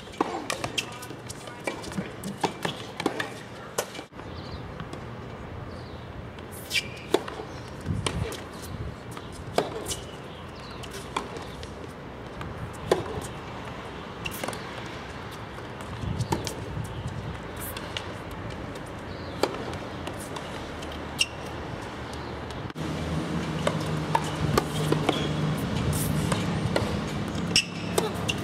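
Tennis balls struck with racquets and bouncing on a hard court: sharp pops every second or two, some louder and closer than others. A steady low hum sets in about 23 seconds in.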